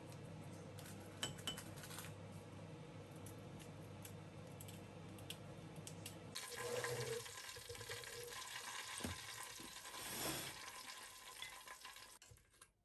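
Kitchen scissors snipping chili peppers into a small bowl over a low steady hum, with a few faint clicks. About six seconds in, a loud sizzling hiss starts as hot dumplings are turned with chopsticks in an air fryer basket, with light knocks, and it dies away just before the end.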